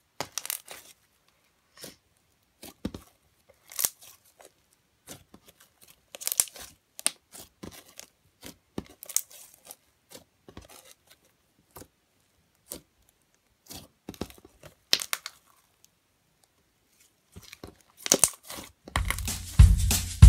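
A large sticky slime mixed with foam beads being squished, stretched and folded by hand: short crackles, pops and tearing sounds in irregular clusters, with quiet gaps between. Near the end, music with a drum beat starts.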